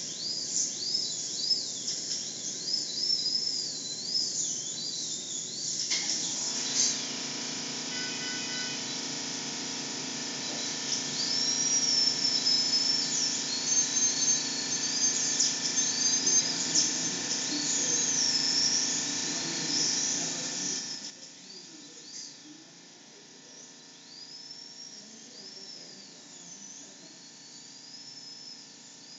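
Wild birds chirping and singing, with many short rising and falling calls. From about six seconds in to about twenty-one seconds a steady mechanical hum holding several tones runs beneath them, then stops.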